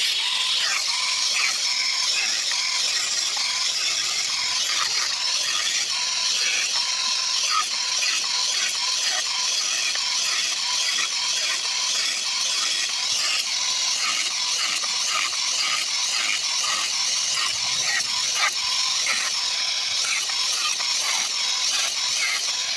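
Electric angle grinder with a cutting disc running at full speed and cutting through thin steel rods, a steady high whine with grinding noise. It stops suddenly at the very end.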